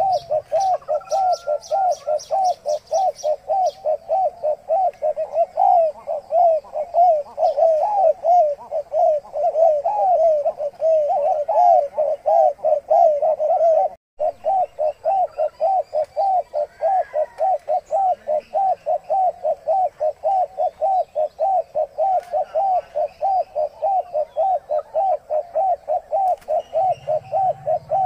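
Spotted dove giving a rapid, unbroken run of short cooing notes, several a second, which the title calls its breeding sound. The calling cuts out for an instant about halfway through.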